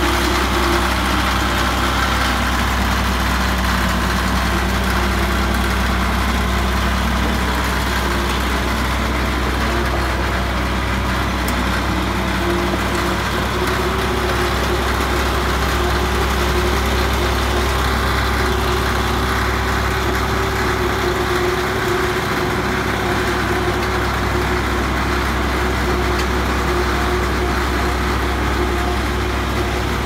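Caterpillar D7G bulldozer's six-cylinder diesel engine idling steadily.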